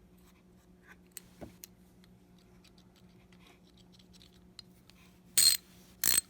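Small 1/4-inch-style ratchet handle from a cheap socket set being handled, a few faint ticks, then two short bursts of sharp metallic clicking near the end.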